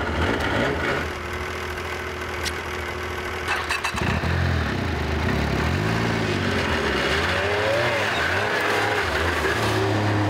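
Snowmobile engine idling steadily, then revving up and down in repeated rising and falling swells as the sled pulls away through deep snow.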